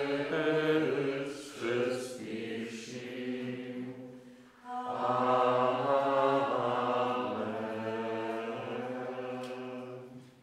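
Men singing a slow liturgical chant, long held notes in two phrases with a short break about four and a half seconds in.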